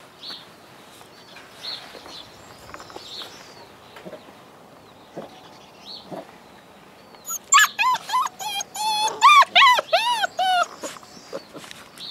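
Alaskan malamute puppies calling: faint, scattered high whines at first, then from about seven seconds in a loud run of many short, high, rising-and-falling puppy howls and yips overlapping one another.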